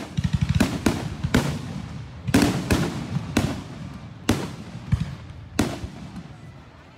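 Aerial fireworks shells bursting: about ten loud booms at uneven spacing, each trailing off in an echo, with a rapid crackle in the first second.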